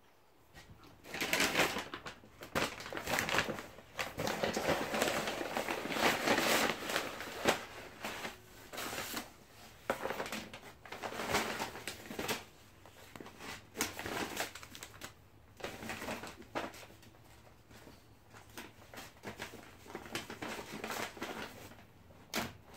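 Rustling and crinkling of paper takeaway packaging being handled, in irregular bursts for most of the stretch, loudest in the first several seconds, with light knocks as items are set down on a tabletop.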